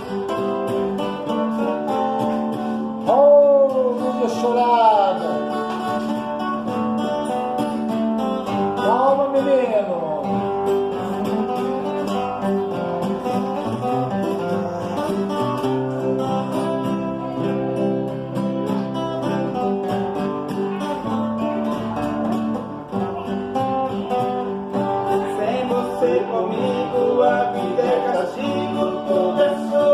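Acoustic guitar music: an instrumental passage between the sung verses of a romantic ballad, with a melody line that slides in pitch a few times.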